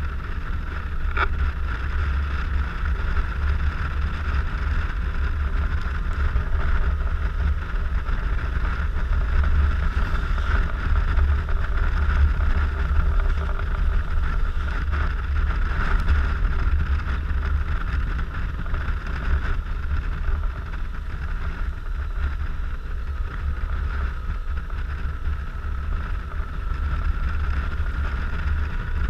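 Steady riding noise from a Suzuki Burgman 650 maxi-scooter at speed: wind buffeting the microphone as a loud low rumble over the scooter's running engine and tyres.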